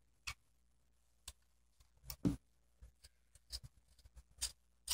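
Small scissors snipping fabric, trimming the excess cloth ends of a hard bow: a scatter of short, quiet snips and clicks, irregularly spaced.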